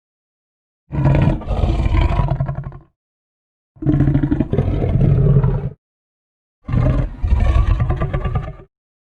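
Three Spinosaurus roar sound effects, each about two seconds long with a deep low rumble under it, separated by dead silence.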